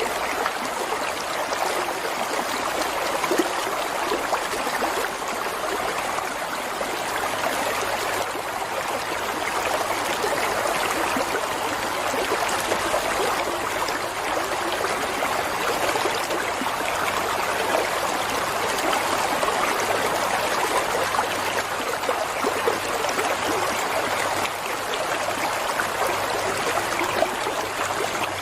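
Stream water running and trickling steadily, a continuous even rush.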